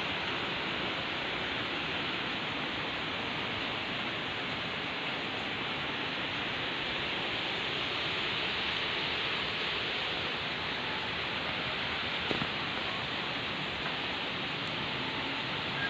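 Strong storm wind blowing: a steady rushing noise with no let-up.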